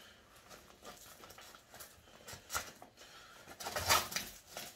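Handling noise from tree-climbing gear being worked by hand: rustling of straps and padding with light knocks and clicks of buckles, loudest near the end.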